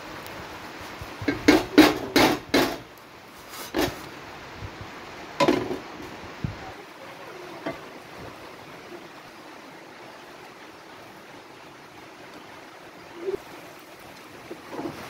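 Metal cookware clanking against a frying pan while eggs are being fried: a quick run of about five knocks a second or so in, and two more later, then a steady low hiss.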